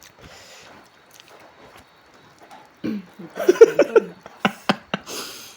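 A person eating: faint mouth noises, then a short voiced sound about three seconds in, followed by a few sharp smacking clicks and a brief hiss near the end.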